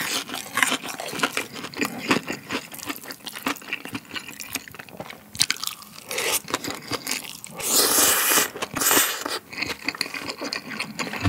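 Close-miked chewing of crispy fried cheese pork cutlet, with many small rapid crunches. Then, about six seconds in, several loud slurps of spicy jjolmyeon noodles.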